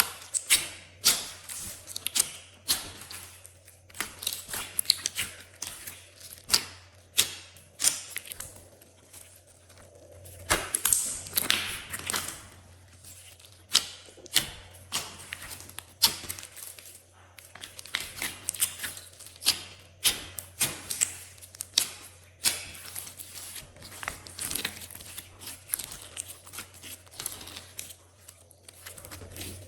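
Glossy slime being squished and worked by hand: irregular sticky clicks and crackly pops, several a second, with a few louder clusters.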